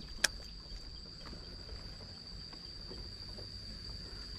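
Insect trilling steadily at one high pitch, with a single sharp click shortly after the start.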